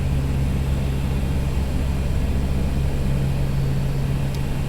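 Convair CV580's twin Allison 501 turboprop engines and propellers droning steadily, heard inside the cockpit during the approach to land: a constant low hum with a strong steady tone and a hiss of airflow above it.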